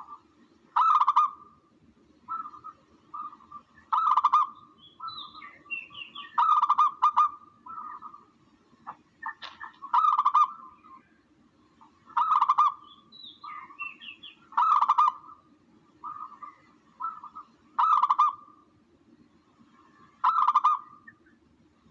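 Recorded dove (tukmo) calls played as a hunting lure: loud coos about every two to three seconds with softer coos between them, and a few higher chirps, over a faint steady low hum.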